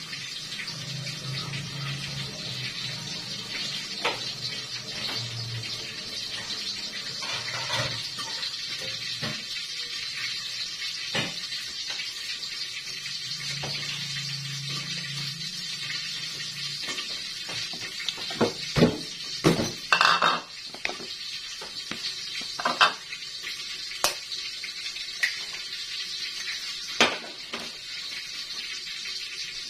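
Kitchen dishes and utensils clattering: a string of sharp knocks and clinks in the second half, over a steady hiss.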